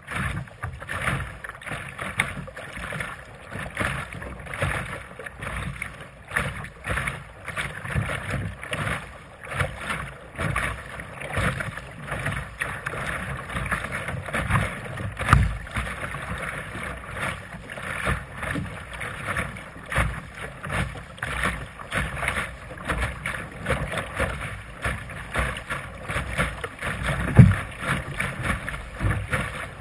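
Water slapping and splashing against a Sunfish sailboat's fiberglass hull as it sails through choppy water, rising and falling unevenly, with wind rumbling on the microphone.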